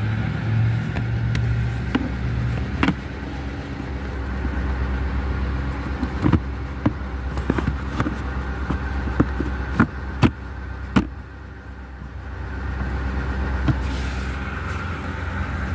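A 2008 Ford Expedition's 5.4-litre V8 idling steadily with a low hum. Between about six and eleven seconds in comes a string of sharp clicks and knocks.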